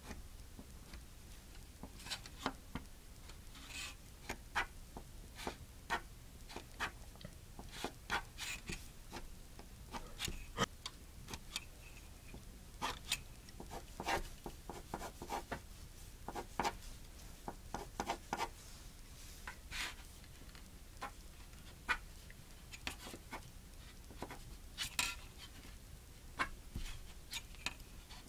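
Pencil lead scratching on paper as lines are ruled along a steel ruler: a string of short, irregular strokes, some longer than others, over a low steady hum.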